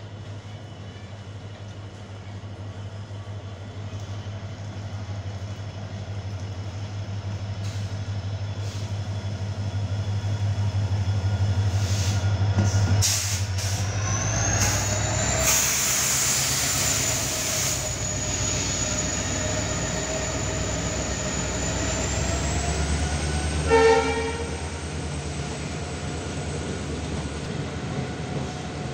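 Indian Railways WDP-class diesel locomotive passing by: its low engine drone grows steadily louder over the first dozen seconds, with a few seconds of hiss midway, and a short horn blast about five seconds before the end.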